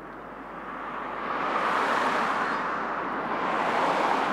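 Jet noise from the four CFM56 (F108) turbofans of a Boeing KC-135R Stratotanker on final approach with its gear down. The roar swells about a second in and rises and falls twice.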